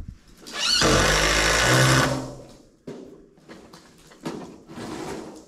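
Cordless impact driver driving a fastener through a rim joist board into a pole barn post: one hard run of about a second and a half, rising in pitch as it starts, followed by a few lighter clicks and knocks.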